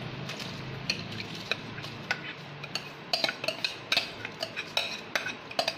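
Soaked jeeraga samba rice being tipped and scraped out of a metal bowl into boiling water in a clay pot: irregular clicks and taps of the bowl and rice, coming thicker from about halfway, over a low steady hum.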